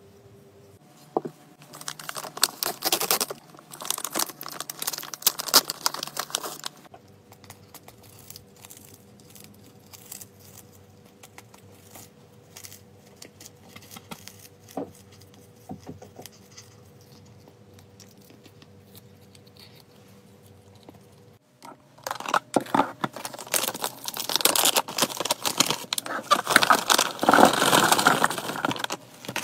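Plastic pet-treat pouch crinkling and rustling as it is handled and tipped over a plastic storage container, in two long stretches. Between them comes a quieter spell of faint clicks and crunches as the cat chews a freeze-dried treat.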